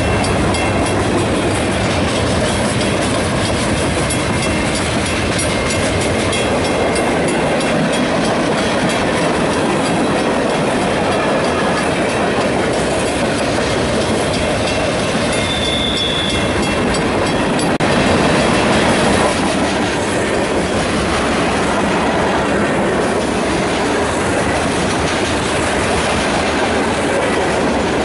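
Freight train cars rolling past close by: a steady, loud rumble of wheels on rail with clicking over the rail joints. A brief high-pitched squeal about halfway through.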